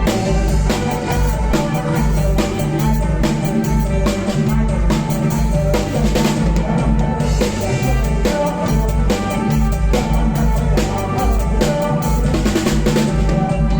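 Live kantruem band music in an instrumental passage: a drum kit keeps a steady, driving beat on bass drum and snare with rimshots, under sustained pitched instruments, with no singing.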